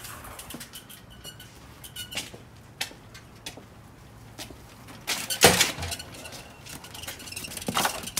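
Quiet outdoor background with scattered light clicks and two louder short knocks, about five and a half and eight seconds in.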